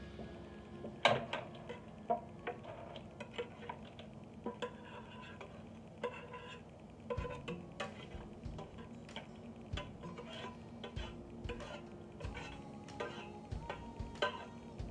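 Serving spoon and spatula clinking and scraping against a bowl and mussel shells as boiled seafood is transferred, in irregular light knocks with the loudest about a second in. Quiet background music runs underneath.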